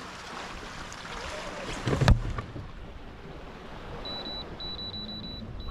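Fishing kayak rocking on calm sea, with water lapping and wind on the microphone. About two seconds in there is a single sharp knock. From about four seconds a high, thin whine comes in short broken pieces.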